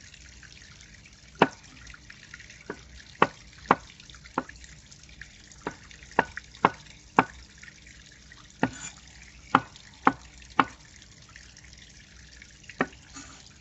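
A broad-bladed knife chopping chanterelle mushrooms on a wooden cutting board: single sharp knocks of the blade on the wood, about fourteen, one or two a second with a few pauses.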